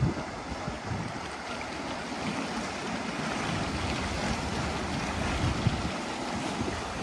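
Wind buffeting the microphone in uneven gusts over small lake waves washing against a rocky shore.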